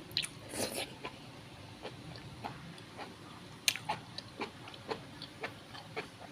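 Eating at the table: small sharp clicks and taps of utensils against a bowl, about two a second in the second half, with a couple of softer, longer mouth and chewing noises near the start.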